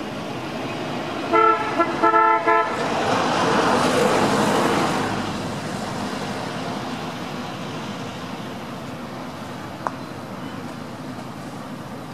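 A vehicle horn gives a few short toots about a second and a half in, then a vehicle passes, its road noise swelling and fading, over steady traffic hum.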